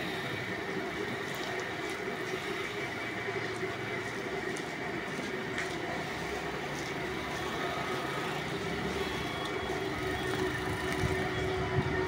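Steady street background noise: a constant hum of traffic with no single event standing out.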